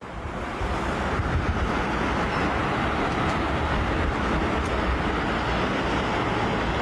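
Steady, loud rumbling and rushing noise of a moving vehicle.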